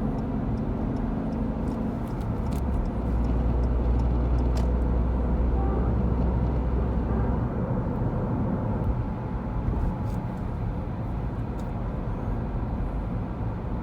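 2018 Ford Fiesta 1.1 three-cylinder running while driving, with a steady engine drone that deepens and strengthens from about two seconds in until about seven seconds. Irregular light clicks run through it, the rattling of the cable-operated gear shift. The owner takes this for a defect; Ford workshops call it normal.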